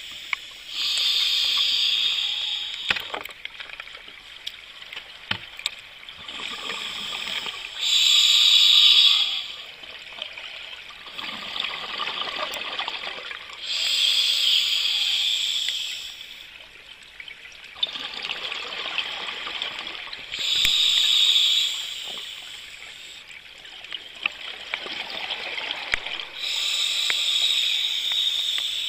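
Scuba diver breathing through a regulator: a loud gush of exhaust bubbles about every six seconds, five times in all, with a quieter hiss of inhalation between them.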